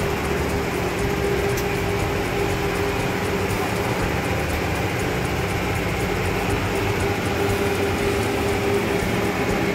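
Steady mechanical hum with a constant rushing noise behind it, two low tones held at an even level with no breaks.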